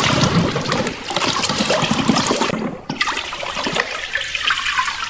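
Running water splashing over toy vehicles being washed, with a brief break just before three seconds in.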